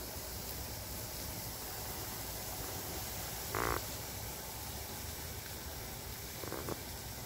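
Tree frog giving a short call about halfway through and a fainter second call near the end, over a steady background hiss.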